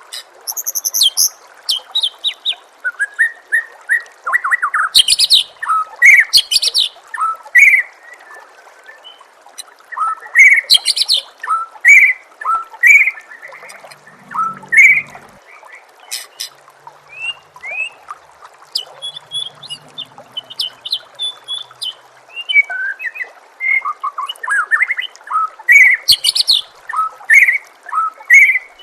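White-rumped shama (murai batu) singing a varied song of short rising whistles, chirps and high trilled notes, with a steady trickle of running water beneath.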